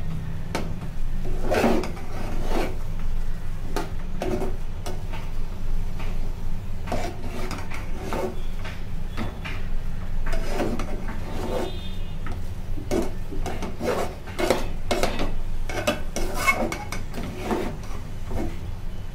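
A flat metal spatula scraping and stirring thick flour dough in a metal pot, in many irregular strokes of metal on metal, while flour is worked into boiling water to make cooked chakli dough. A steady low hum runs underneath.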